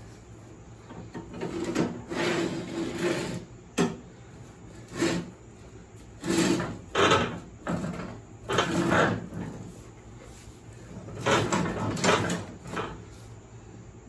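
A 42-inch steel mower deck being shoved and worked into place under a riding mower: irregular bursts of scraping and sliding, with a sharp knock about four seconds in.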